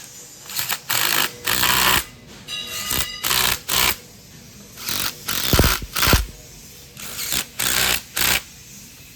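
Hand tools working on a metal gear pump housing during reassembly: a run of short, irregular metallic strokes, roughly one every half second, with two sharp knocks a little past halfway.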